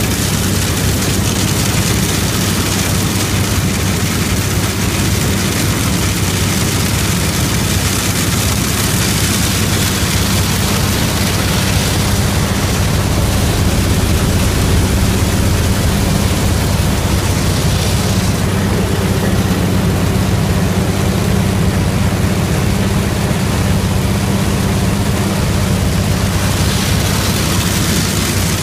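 1961 McCormick Deering 101 Bean Special combine running steadily while harvesting soybeans: a continuous engine hum with a loud hiss over it. The hiss eases somewhat past the middle.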